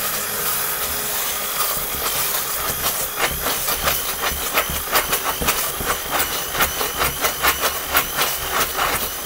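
Bamix hand blender running on low speed in a plastic bowl of Yorkshire pudding batter: a steady whirring hiss, with many quick irregular clicks from about a second and a half in as it beats air into the mix.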